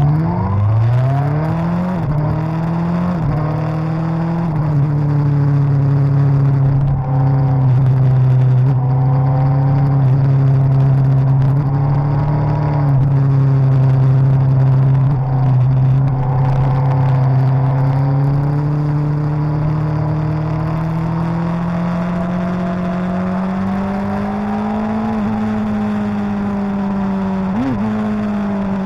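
Suzuki GSX-R1000's inline-four engine under way, revs rising quickly over the first few seconds with a gear change partway, then held steady for a long stretch. The revs climb gently again later, with a short spike near the end.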